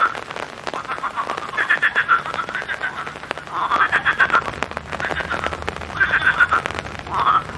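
A chorus of frogs croaking in the rain: overlapping rattling call trains, a new one starting every second or two, over a light patter of raindrops.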